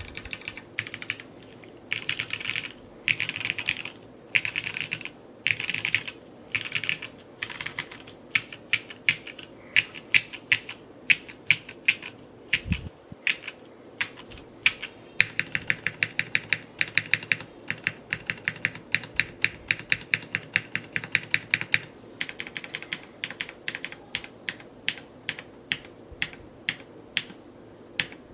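Typing on a Neo65 Cu mechanical keyboard: short bursts of quick keystrokes, then separate strokes, a fast steady run in the middle and more spaced strokes near the end, with one low thump about halfway through.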